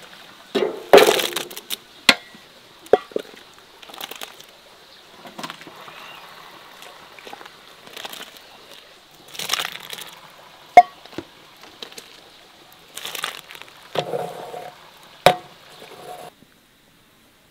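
Enamel ladle scooping boiling cherry plums in a large aluminium pot: sharp clinks and knocks of the ladle against the pot, some ringing briefly, between splashes of the hot liquid. The sound cuts off suddenly near the end.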